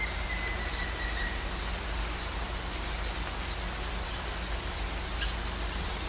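Waterfall pouring into a pool: a steady rush of falling water. Over it a thin whistle slides slightly lower in the first second or so, and a few short, high bird chirps come later.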